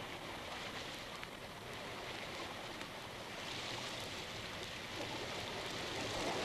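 Steady hiss of the recording's background noise, with a few faint clicks.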